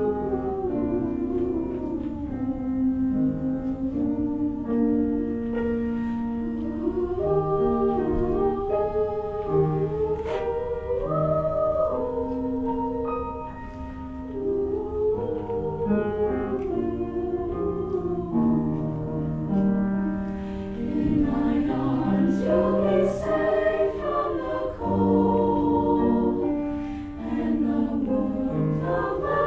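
High school choir singing a Christmas song in harmony, the phrases held out with short breaks between them.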